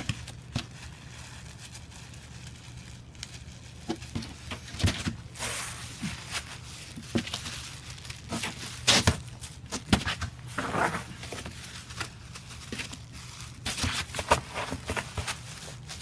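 Snow being scooped up and packed into a snowball by a gloved hand: irregular crunching and scraping, coming in clusters, over a faint low steady hum.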